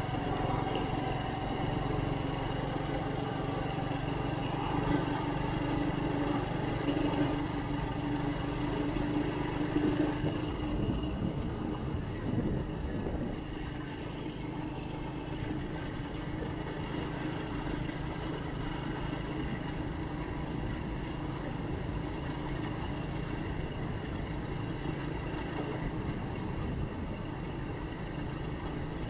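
Engine of the vehicle carrying the camera running at cruising speed, with road and wind noise. Its pitch climbs slowly over the first ten seconds, then drops and holds steady.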